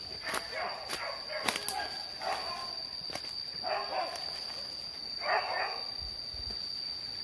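Hunting dogs barking and yelping in several short bouts while they search for wild boar, with sharp snaps of twigs underfoot.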